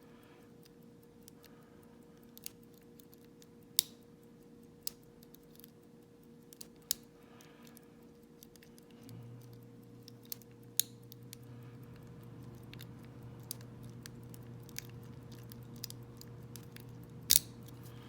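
Lock pick and tension wrench working the wafers of a small vintage Elgin wafer padlock: scattered sharp metal clicks and ticks at irregular intervals, a few of them louder. A steady low hum comes in about halfway through.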